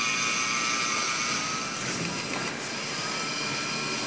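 DC gear motor of a linear actuator whining steadily as it pushes a folding steel support linkage. About two seconds in there is a click and the whine breaks off, then comes back rising slightly in pitch.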